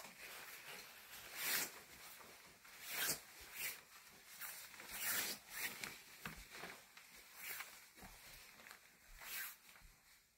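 Footsteps shuffling across a floor, a soft scuff every second or so, with clothing rustling.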